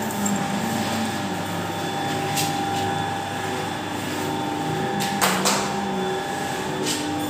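14-roller automatic noodle-making machine running: a steady mechanical hum with a constant high tone, and two sharp clacks a little past five seconds in.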